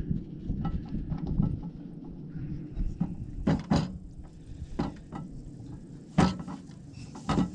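Handling knocks and clinks of a compact camping cookset being unpacked from its pouch: about five sharp knocks spaced over several seconds, over a steady low rumble.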